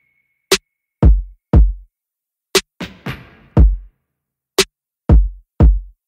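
Background electronic music: a looping drum-machine beat of sharp clicks and deep kick drums that repeats about every two seconds.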